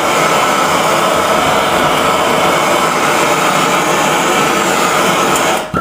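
MAPP gas hand torch burning steadily as its flame heats a brass fitting on copper pipe, shut off suddenly near the end.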